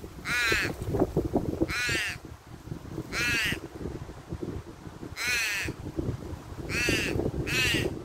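Australian crow giving harsh cawing calls, six in all, each about half a second long. They are spaced a second or more apart, with the last two close together near the end.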